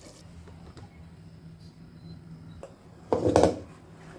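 Serving spoon clinking and scraping against a cooking pot and bowl as curry is served: a few light clicks, then one louder, brief clatter about three seconds in.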